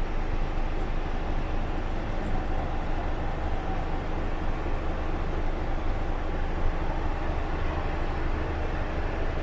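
Scania G440's 13-litre inline-six diesel engine idling steadily, heard from inside the cab as a low, even rumble.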